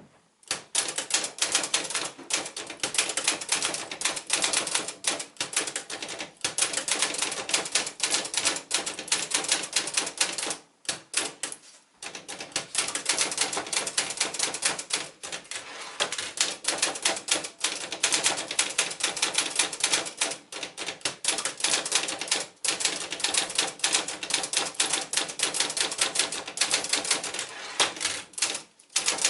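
Sears Manual 2 (Brother JP-5) manual portable typewriter being typed on fast: rapid runs of key strikes broken now and then by short pauses.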